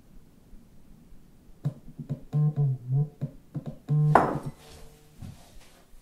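A short electronic keyboard melody of several notes begins about a second and a half in. It ends with a sharp, louder note about four seconds in that rings on briefly.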